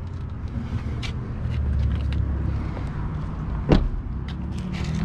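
A car door is shut with one sharp thump about three-quarters of the way through: the rear door of a 2018 Jaguar XE sedan. Before it come a low steady rumble and small handling clicks.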